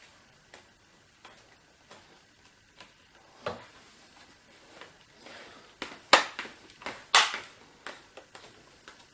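Plastic screen bezel of a Dell Inspiron 17 3721 laptop being pressed back onto the lid, its clips snapping into place: a run of light clicks, with three louder snaps about a third of the way in and near two thirds.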